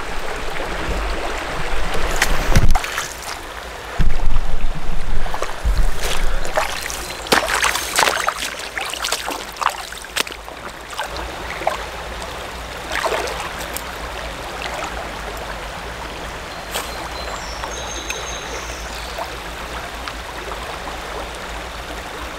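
Creek water running over shallow riffles, a steady rushing hiss. In the first half, loud low rumbles and many sharp knocks and clicks break in over it, then the flow carries on steady.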